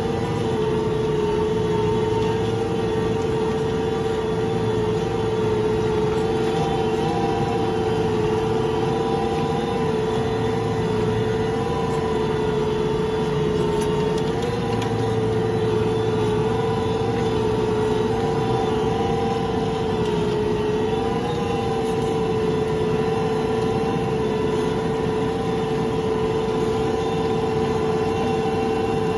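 John Deere tractor running steadily while ploughing, a constant engine drone with a strong steady whine whose pitch wavers slightly every few seconds.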